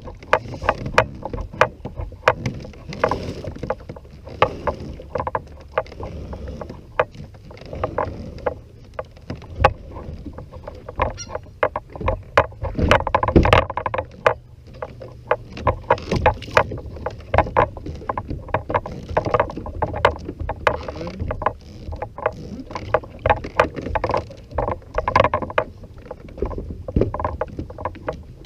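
Irregular knocks, clunks and clicks of gear being handled in a fishing kayak, sharp and uneven in spacing, over a steady low rumble.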